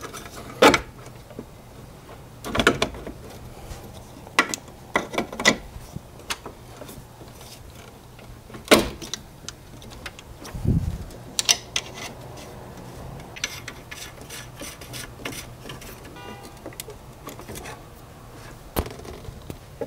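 Parts and tools being handled and fitted in a car's engine bay: scattered sharp clicks, knocks and short rattles at uneven intervals, over a steady low hum.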